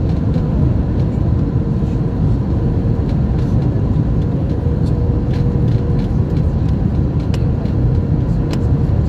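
Steady cabin noise inside an Airbus A321 on final approach: engine and airflow rumble, with a faint steady tone above it and scattered light clicks.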